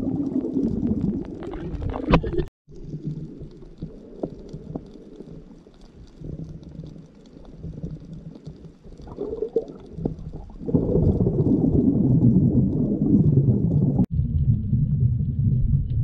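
Sound picked up by a camera held underwater: a muffled low rumble of water moving over the housing. It falls away for several seconds to a quieter stretch with faint scattered ticks, then returns loud about two-thirds of the way in. The sound drops out completely for a moment twice.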